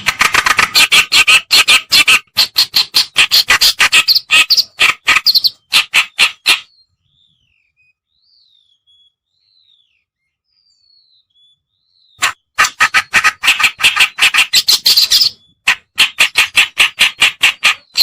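Kerakbasi (reed warbler) song from a lure-call recording: a loud, rapid string of short scratchy notes, several a second. It stops about a third of the way in for some five seconds, leaving only faint thin whistled notes, then the rapid chatter resumes.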